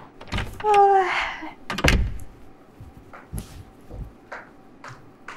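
A door is opened with a click and a short squeak, then shut with a thud about two seconds in. Soft footsteps in slippers follow.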